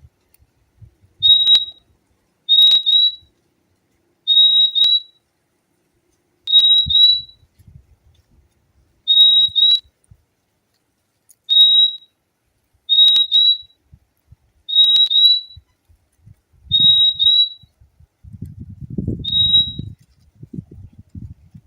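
Purple-throated euphonia (fim-fim) calling: short, high whistled notes, often in quick pairs, repeated about every two seconds. A low rumbling noise comes in near the end.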